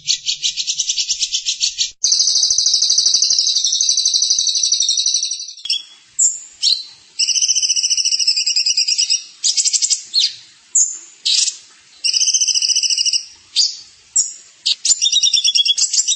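A small songbird singing in fast, buzzy trills: a stuttering trill at first, then one long trill lasting a few seconds, then shorter trill bursts broken by sharp rising notes.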